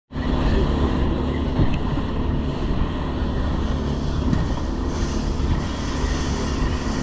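A boat running underway over open water: steady engine noise with wind buffeting the microphone and water rushing along the hull, cutting in abruptly at the start.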